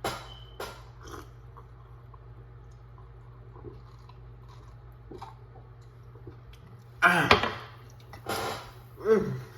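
A person tasting Starry Zero Sugar soda: a few light clicks near the start, then after a quiet stretch loud sips and swallows about seven seconds in, ending with a short falling voiced mouth sound.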